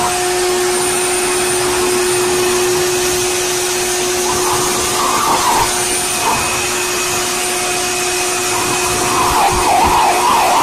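Electric blow dryer running steadily at full speed, a constant motor hum under a rush of air, blowing on a wet dog.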